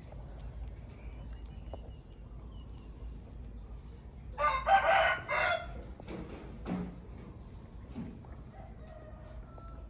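A rooster crowing once, a loud crow of a little over a second about four seconds in.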